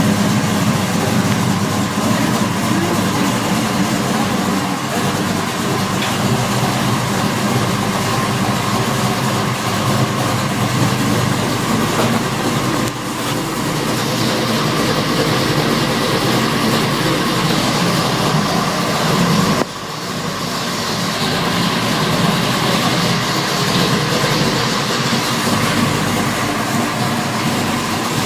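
540 cubic inch big-block Chevrolet V8 running steadily, carrying an odd noise that comes and goes whose cause the owner does not know. The loudness dips briefly about 13 seconds in and again about 20 seconds in.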